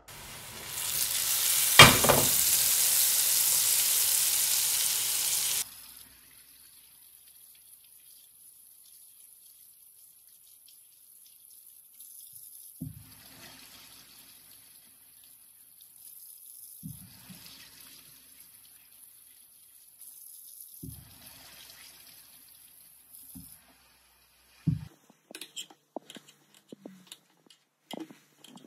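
Breaded chicken deep-frying in a pot of hot oil, a steady loud sizzle that cuts off abruptly after about five seconds. Then a kitchen tap runs faintly as hands are washed at the sink, and near the end come the sharp clicks of a knife cutting potatoes on a wooden chopping board.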